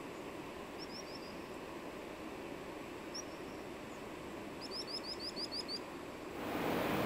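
A small bird chirping in quick runs of short rising notes: about four notes, then a single note, then a faster run of about eight, over a steady outdoor hiss. About six seconds in, a louder, even rushing noise takes over.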